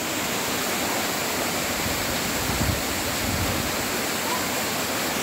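Waterfall cascading over rock: a steady, even rush of falling water.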